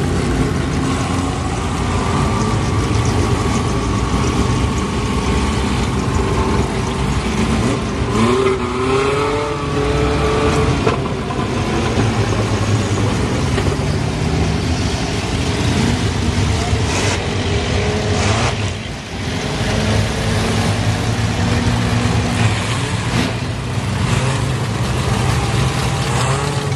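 Stock race car engines running on a dirt oval, a steady engine drone with one car revving up in a rising pitch about eight seconds in.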